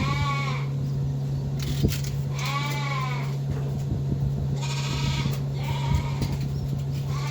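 Farm animals bleating: several long, wavering calls a few seconds apart, over a steady low hum and light knocks.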